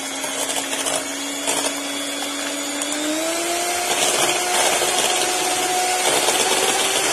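SilverCrest electric hand mixer running, its wire beaters whisking egg whites to a foam in a stainless steel bowl. A steady motor whine whose pitch steps up about three seconds in.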